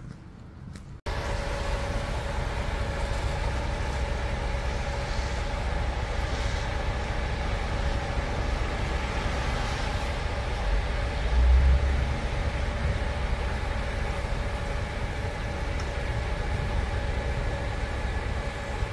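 A coach bus idling at the kerb, a steady engine drone with a constant hum, over passing street traffic. The sound comes in abruptly about a second in, and a brief louder low rumble swells near the middle.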